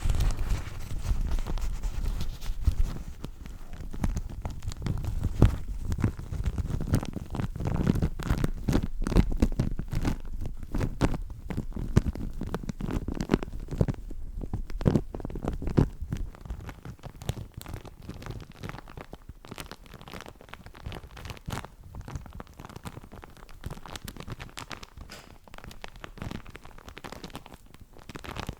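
Crinkly paper napkin being crumpled and rustled close to the microphone, a dense irregular crackling that is louder in the first half and softer after about sixteen seconds.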